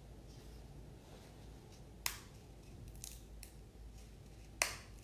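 A large altar host being broken by hand at the fraction rite of the Mass: a few crisp, dry snaps, one about two seconds in, two smaller ones around three seconds, and the loudest near the end.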